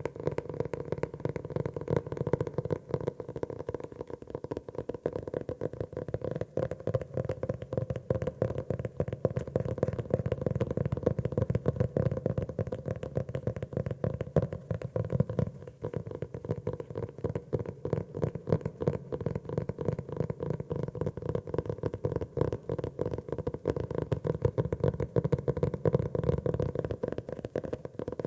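Fingers tapping rapidly and continuously on a grey notebook, a dense run of soft, low, hollow taps.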